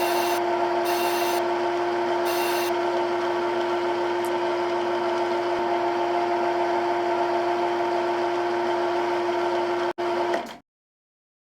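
Simulated CNC milling machine sound from the simulator software: a steady spindle hum with a few fixed pitches. Hissing cutting noise comes in briefly two or three times in the first few seconds, and the sound cuts off suddenly about ten seconds in.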